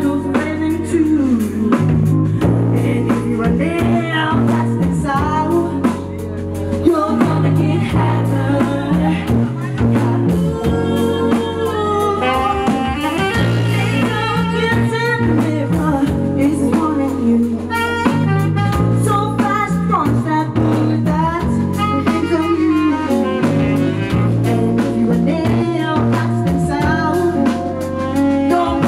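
Live band playing a song: women singing over bass and drums, with saxophone and trumpet parts.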